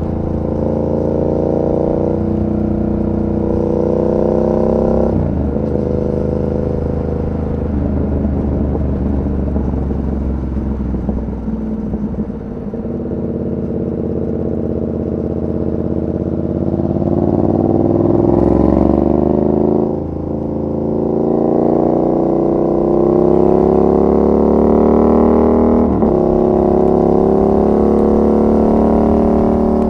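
Yamaha MT-07's 689 cc parallel-twin engine under way: it eases off and falls in pitch through the first half, then pulls hard, rising in pitch, with two sudden drops as it shifts up, about two-thirds of the way in and again near the end.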